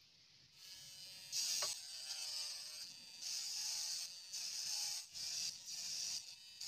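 Small handheld motor with a sandpaper drum sanding a strip of white PVC: a rasping hiss that starts about a second in and comes in short bursts as the plastic is pressed against the spinning drum.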